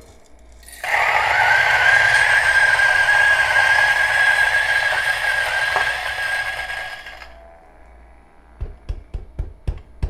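Turin DF64V 64 mm flat-burr grinder spinning up about a second in and grinding a 15-gram dose of coffee beans with a steady high whine. The whine stops around seven seconds in, and a few sharp taps follow near the end.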